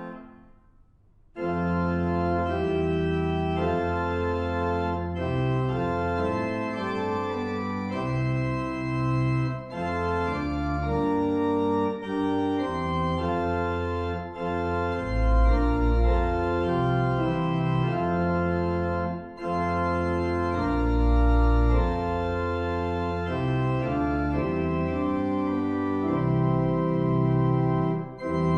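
Organ playing a hymn tune in sustained chords with deep pedal bass notes. It comes in after a brief pause about a second in.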